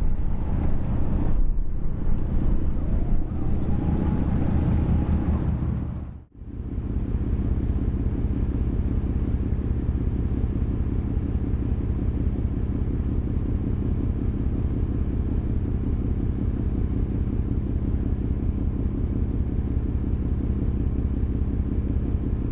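Ferry's engine running with a steady low drone. The sound cuts out briefly about six seconds in, then carries on unchanged.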